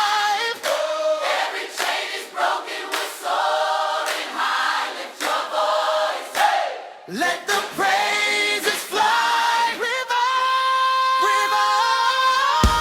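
A cappella choir singing with no instruments. From about nine seconds in, the voices hold long chords that step upward, and the drums and full band come in right at the end.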